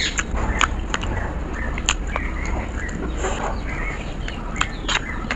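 A serving spoon clinking and scraping against a bowl as potato fry is spooned onto a steel plate of rice: a scattered run of sharp taps over a steady low hum.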